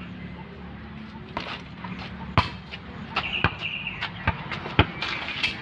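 Basketball bouncing on an asphalt court: several sharp thuds at uneven intervals, the loudest near the end. A brief high squeak comes in the middle.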